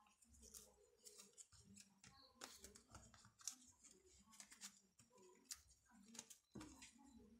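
Faint handling noise: scattered light clicks and rustles at an uneven pace.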